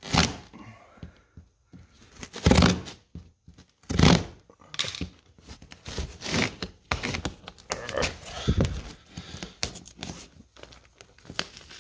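Knife slicing through packing tape along a cardboard box's seam, with the tape tearing and the cardboard scraping and crinkling in a run of uneven strokes, the loudest about two and a half and four seconds in.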